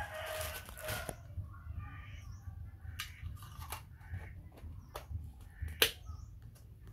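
Crinkling plastic packaging and a string of sharp plastic clicks and snaps as a clear dome lid is fitted onto a plastic cup of milk. The loudest snap comes near the end.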